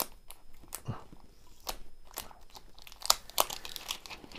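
Clear plastic tape being peeled off the white plastic body of a smart radiator thermostat, with irregular crackles and crinkles and a few sharper snaps.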